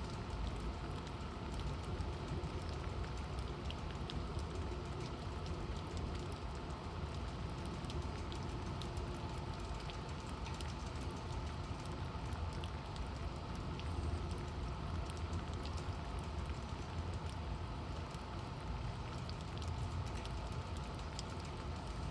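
Rain falling steadily, a constant rushing hiss with scattered sharp ticks of drops striking nearby surfaces.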